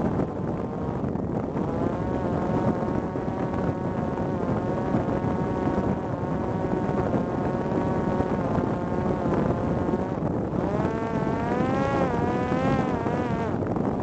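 Parrot Disco fixed-wing drone's electric motor and pusher propeller buzzing in flight, with wind rushing over the onboard camera. The pitch of the buzz wavers up and down from about ten seconds in.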